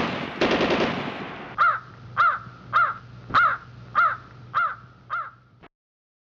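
A loud rapid rattling burst, then a crow cawing seven times at an even pace, about one caw every 0.6 seconds, before the sound cuts off abruptly near the end.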